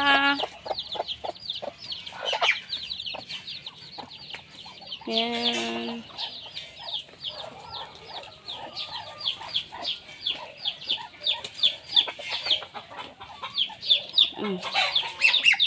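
Young poultry peeping continuously, a quick run of short, falling, high peeps, with hens clucking among them. One longer, lower call sounds about five seconds in.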